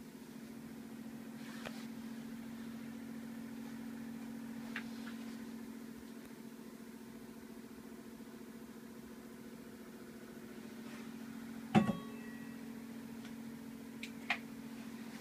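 Electric fan running with a steady low hum. A sharp knock comes about twelve seconds in, followed by a lighter click near the end.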